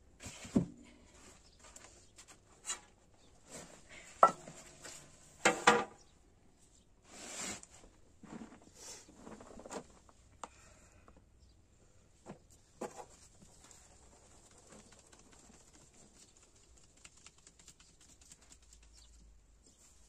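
Metal pots and trays knocking and clinking as flour is handled, several times in the first few seconds, two of the knocks ringing briefly. Then a faint, steady patter of flour being sifted through a wooden-rimmed sieve onto a metal tray.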